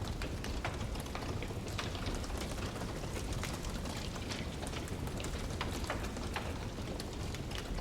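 Wood fire burning in a fireplace, crackling with frequent irregular sharp pops over a steady low rumble of the flames.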